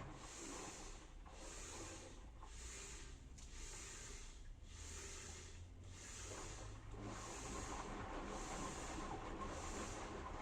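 Washing machine running a cycle: a low hum under a soft swish that comes back a little more than once a second, louder from about seven seconds in.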